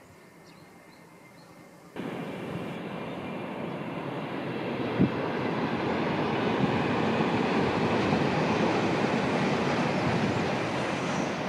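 Faint rural quiet, then about two seconds in the sound jumps to a high-speed E5-series Shinkansen train passing on an elevated viaduct. It is a steady, even rush of air and wheels that swells to its loudest around eight to ten seconds in and begins to ease near the end.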